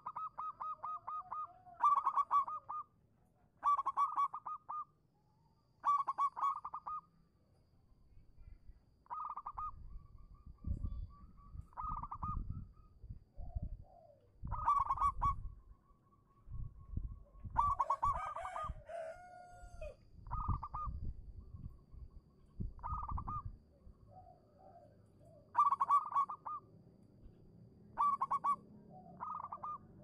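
Zebra dove (perkutut) singing: a dozen or so short, rapid trilled cooing phrases, one roughly every two seconds.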